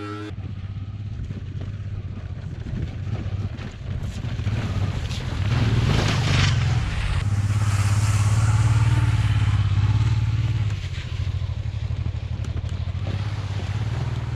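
Honda XL650V Transalp's V-twin motorcycle engine running, growing louder about halfway through and easing off again near the end.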